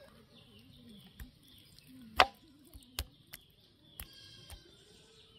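Chicken being chopped into pieces on a boti blade: several sharp knocks and chops, the loudest about two seconds in, as the meat is cut and the pieces drop onto an aluminium plate.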